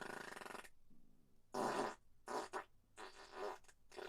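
A run of about five farts: a buzzy one lasting most of a second at the start, then shorter ones, the loudest about a second and a half in.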